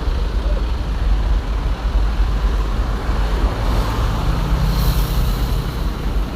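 Hino 500 truck running, a steady loud low rumble with a faint engine hum rising partway through. A brief hiss comes about five seconds in.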